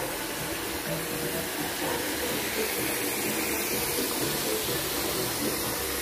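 Steady rush of water from an above-ground pool's filter-pump return inlet, pouring into the pool.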